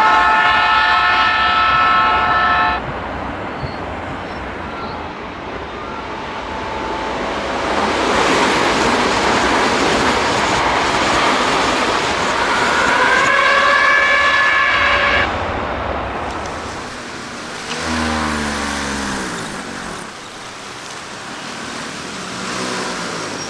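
Electric train sound played in reverse: the motors' VVVF inverter whine, a stack of steady tones that cuts off abruptly, over running noise. Later, inverter tones rise, hold and stop suddenly, and a few falling lower tones follow near the end.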